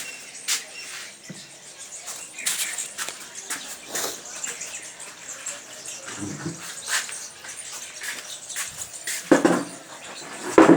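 Birds chirping in short, scattered calls, with two louder, lower sounds near the end.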